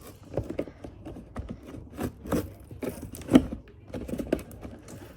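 Toy-box packaging being handled and picked at while its tough packing tape is worked open: irregular scraping and rubbing with scattered knocks and clicks, the loudest knock a little past three seconds in.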